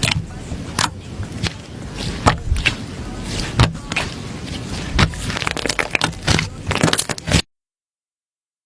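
Slime being squished by hand, giving irregular crackling pops and clicks. The sound cuts off suddenly near the end.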